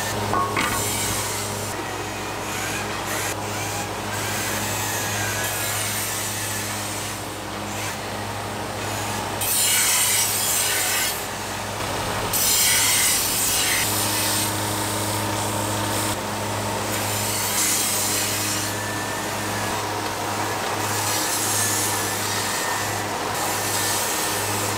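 Aluminum frying pan bodies pressed against spinning abrasive wheels and belts: a harsh hiss of metal on abrasive that surges several times for a second or two, over a steady low machine hum.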